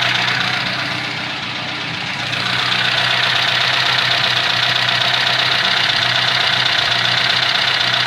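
Car engine idling with its alternator running, a steady engine note with a high, even whine over it. The loudness dips briefly about a second in, then holds steady. The electrical load has been removed, with the headlights switched off.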